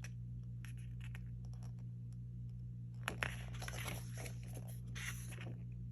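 Photobook paper pages being handled and turned: a few light paper rustles and soft clicks, about three and five seconds in, over a steady low hum.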